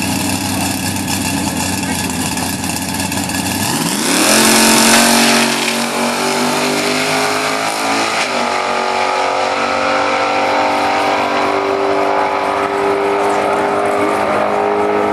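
1964 Chevelle drag car's engine running rough at the starting line, then launching at full throttle about four seconds in, loudest at the launch. The engine note then climbs as the car pulls away down the strip, dropping once about eight seconds in before climbing again.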